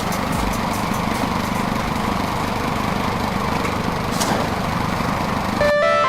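A small engine running steadily. Near the end it gives way to music.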